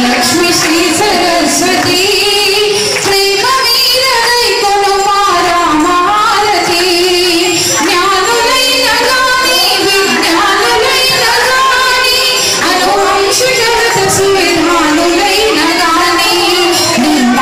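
Indian devotional song: female voices singing a wavering melody over instrumental accompaniment.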